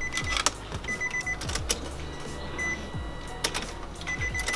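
Car ignition switched on to prime the fuel pump: several sharp key and switch clicks, a short high beeping chime repeating at uneven intervals, and a faint steady hum underneath.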